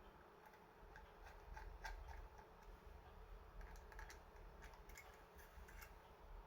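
Faint, irregular light clicks and taps, about a dozen of them, over a low steady hum.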